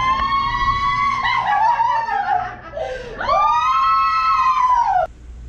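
A woman screams twice, two long high-pitched screams, with laughter between them. The sound cuts off suddenly near the end.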